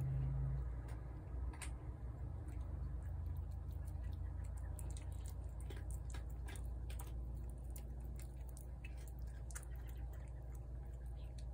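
A cat eating wet food from a plate: irregular small wet clicks and smacks over a steady low background rumble.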